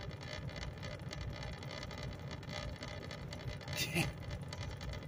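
Steady low hum of an idling engine heard from inside a truck cab, with a brief noise about four seconds in.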